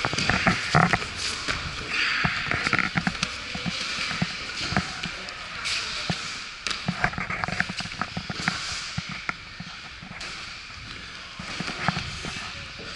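Grappling on foam mats during a ju-jitsu sparring roll: bodies and feet thump and scuff against the mats in an irregular run of knocks over a hiss.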